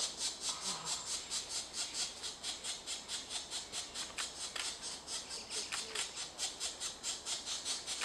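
Pileated woodpecker nestlings begging at the nest cavity while being fed: a steady, rhythmic high-pitched hissing call repeated about five times a second.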